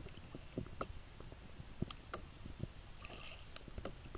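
Soft, scattered knocks and clicks over a low rumble, from a canoe drifting on a calm river, with a brief faint high sound about three seconds in.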